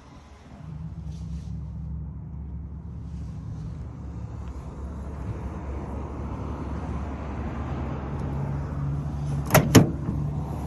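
A vehicle engine idling steadily with a low hum. Near the end come two sharp clicks close together.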